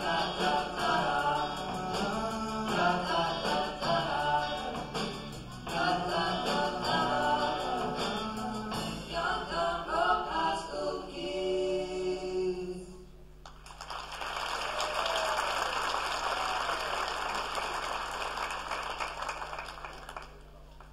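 A group of singers with a live band performing a pop song, ending on a held note about twelve seconds in. Audience applause follows for about seven seconds, then dies away near the end.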